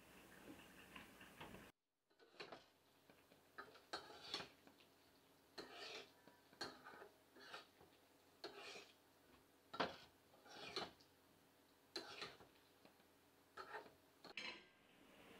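Slotted metal spatula scraping and clinking against a karahi as green chilies are stirred through a thick masala, in irregular strokes about one or two a second. A short sizzle at the start as the chilies go into the hot pan.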